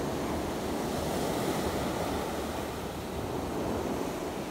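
Surf washing up a pebble beach in a steady rush, with wind buffeting the microphone.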